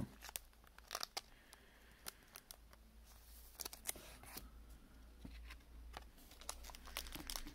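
Trading cards handled between the fingers: faint, scattered clicks and slides of card stock as the cards are flipped and sorted.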